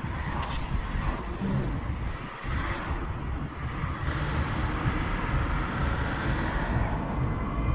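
Road noise of a moving car heard through a camera mounted outside it: a steady low rumble of tyres on pavement with wind buffeting the microphone.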